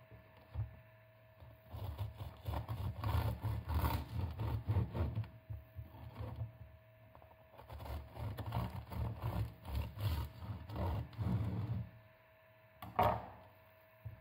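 A long knife sawing back and forth through a baked focaccia loaf on a wooden board: two bouts of quick rasping strokes as the crust and crumb are cut, then a single knock near the end.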